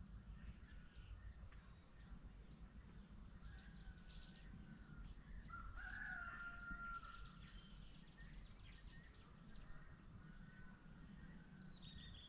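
Faint rural ambience: a steady high drone of crickets, with faint distant bird calls, the longest about five to six seconds in, over a low rumble.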